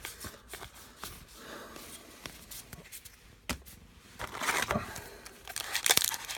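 Trading cards being handled, with light clicks and rustles, then a foil card-pack wrapper crinkling and tearing from about four seconds in, loudest near the end.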